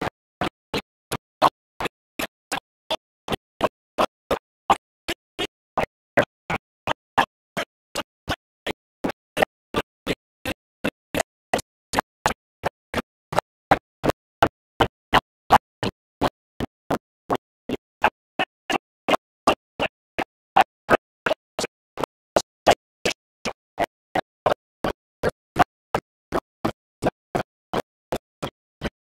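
A steady, evenly spaced train of short clicks, about three a second, with silence between them.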